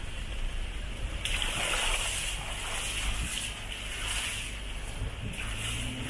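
Wind buffeting a small camera microphone with an uneven low rumble, over a steady rushing hiss that grows brighter about a second in.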